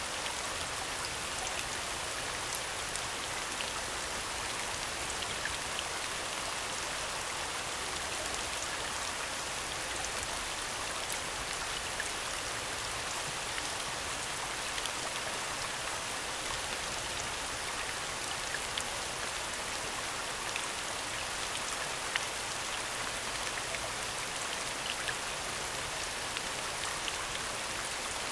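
Steady rain falling, with scattered droplet ticks: a rain soundscape.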